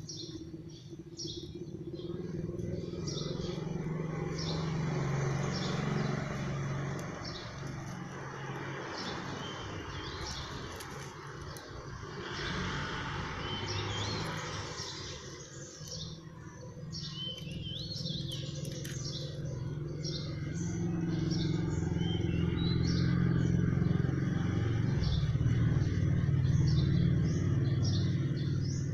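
Small birds chirping in the background, short high calls repeating every second or so, over a low rumble that swells and fades.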